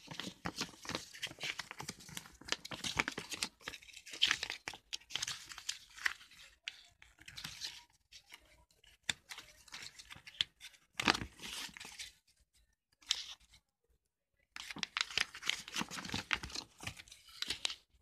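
Paper leaflets rustling and crinkling as they are handled and shuffled, in irregular bursts with a short lull about two-thirds of the way through.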